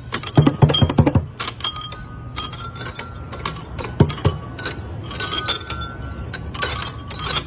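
Children playing an outdoor playground music panel: hand slaps on plastic drum pods, with a cluster of hits in the first second and more about four seconds in, and metal chime bars clinking and ringing as they are struck.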